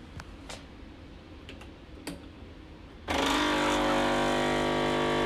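A few light clicks, then about three seconds in a Nespresso Professional capsule coffee machine's pump starts with a loud, steady buzz as it begins brewing.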